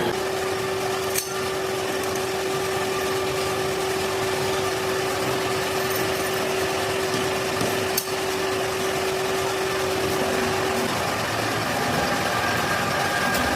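Workshop machinery running steadily with a dense mechanical noise and a steady hum that stops about eleven seconds in; two sharp clicks sound, about a second in and about eight seconds in.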